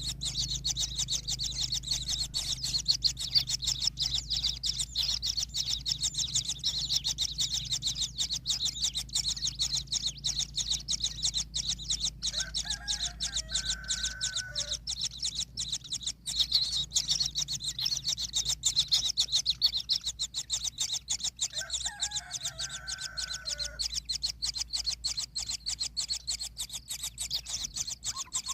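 Continuous fast, high-pitched chittering throughout, with a rooster crowing twice: once about halfway through and again about three-quarters through.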